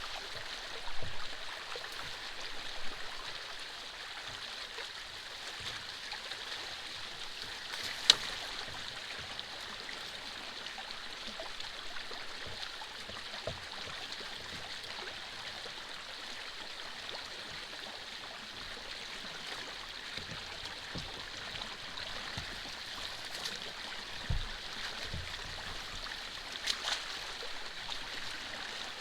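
Water in a drainage canal flowing steadily with a continuous rushing hiss. A few short knocks and thumps stand out, the sharpest about eight seconds in.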